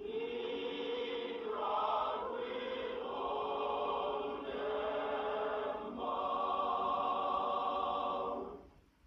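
A choir singing slow, held chords that change every second or two, then stops about eight and a half seconds in.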